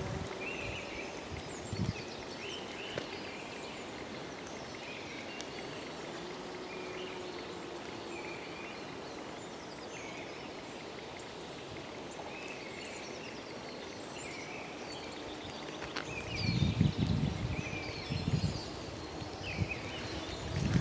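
Forest ambience: a steady outdoor hush with small birds chirping now and then. About three-quarters of the way in, a few heavy footsteps on the path.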